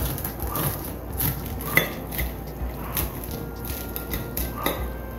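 A knife cutting through the crisp fried crust of a rice kibe on a plate. There are irregular clicks and scrapes of the blade against the crust and the plate.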